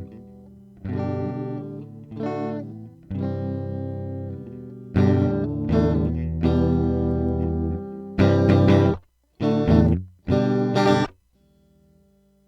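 Electric guitar played through a compressor pedal, a sound test of the effect: strummed chords left to ring, the middle ones struck louder, then three short, clipped chord stabs near the end before it stops.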